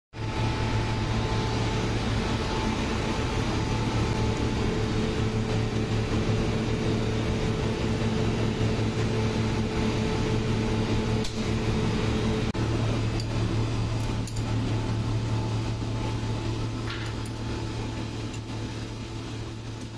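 Steady drone of ship's machinery, with a strong low hum and fainter steady tones above it. A few faint metallic clicks come after the middle, and the drone eases off somewhat near the end.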